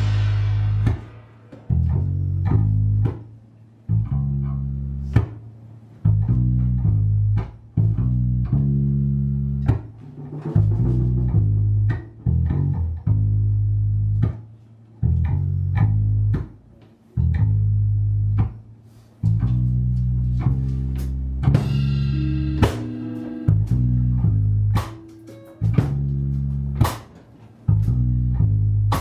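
Band music with a loud bass guitar line, guitar and drums, in a stop-start rhythm that drops out briefly about every two seconds.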